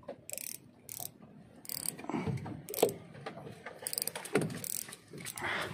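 Fishing reel clicking and whirring in uneven bursts as the line is worked.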